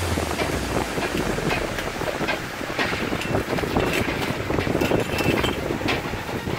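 Steady rushing background noise with a few short, light clinks and clicks of a round metal pizza pan being handled with a pan gripper as it is carried and tipped onto a board.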